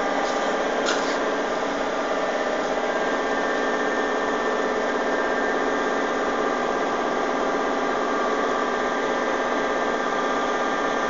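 The 40-ton hydraulic press's pump running steadily, an even hum with a whine over it that does not change. There is a faint click about a second in.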